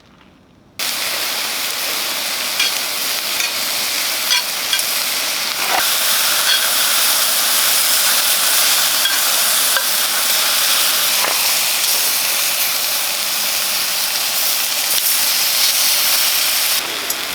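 Food sizzling and frying on a hot pan, starting suddenly about a second in, with small pops and crackles through the steady hiss.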